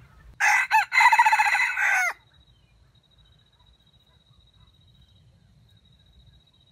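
A rooster crows once, about half a second in: a short broken note, a quick catch, then a long note that falls away at the end. A faint steady high tone follows.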